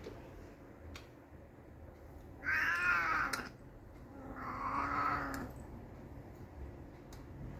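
Domestic cat meowing twice: a loud, wavering meow about two and a half seconds in, then a longer, slightly quieter one about a second later.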